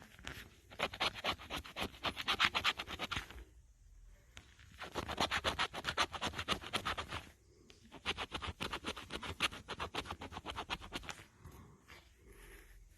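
Scratch-off lottery ticket being scratched in quick, rapid strokes, in three bouts with short pauses between them.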